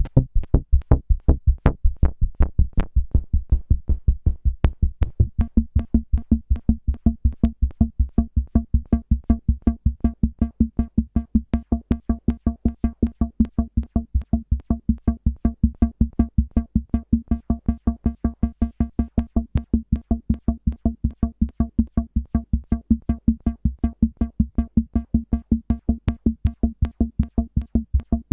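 Behringer System 100 analog modular synthesizer playing a fast, even pulse of short bass notes, about four to five a second, with its envelopes retriggered by the LFO. A higher tone joins the bass about five seconds in.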